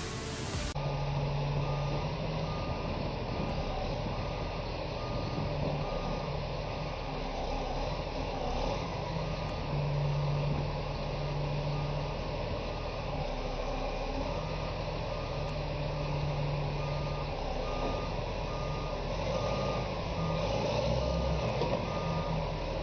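Heavy truck's reversing alarm beeping at a steady even rate over its engine running.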